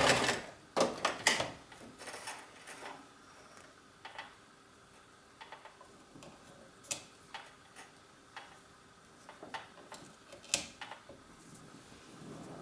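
A domestic sewing machine running fast on a zigzag hem stitch stops right at the start. Then scattered sharp clicks and soft taps follow, the loudest about a second in, as the machine, pins and fabric are handled and the finished hem is pulled out.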